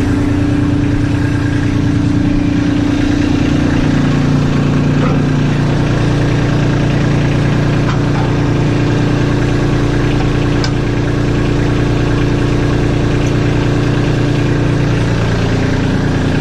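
Kubota LX2610 tractor's three-cylinder diesel engine running steadily while its front loader is worked. The engine note drops about four seconds in and comes back up near the end.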